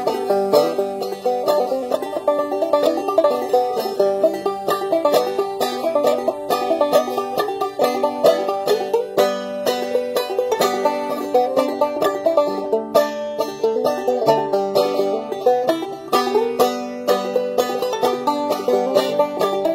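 Five-string banjo played solo in an old-time bluesy tune: a steady, unbroken stream of quick plucked notes.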